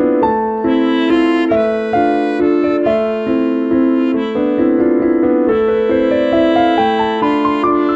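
Instrumental background music: a keyboard-like melody over held chords, with a rising run of notes near the end.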